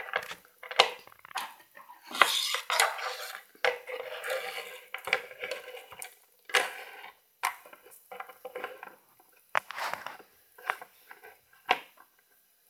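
Small plastic toy figures and accessories being handled, moved and set down on a wooden tabletop: irregular clicks, knocks and light clattering, with brief rustling in between.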